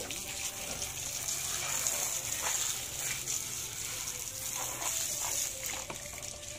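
A stream of water pours over catfish in a plastic mesh basket and splashes onto wet concrete as the fish are rinsed. It is a steady gushing splash with a few brief splats.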